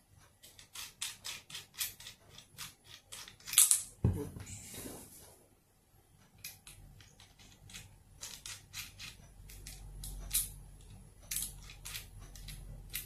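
A run of small metallic clicks, about three or four a second, from a Discovery rifle scope and its mounting rings being handled and worked. About four seconds in there is a louder click and a dull thump.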